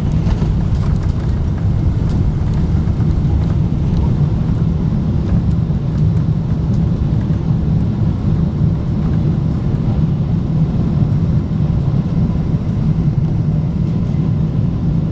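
Steady low rumble of a Boeing 777-200ER's engines and airflow, heard as even, unchanging cabin noise.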